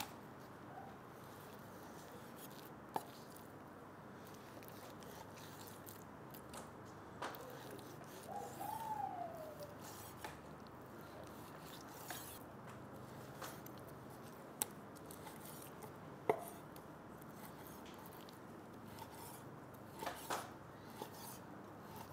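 Quiet kitchen work: a handful of sharp knocks and clicks of a knife or utensils, spaced irregularly a few seconds apart, over a low steady hiss.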